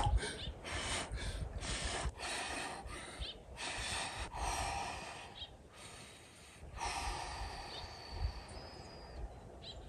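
A man breathing hard while sitting in a cold-water plunge: a run of short, forceful exhales through pursed lips, about one a second. They ease into slower, quieter breaths after about halfway.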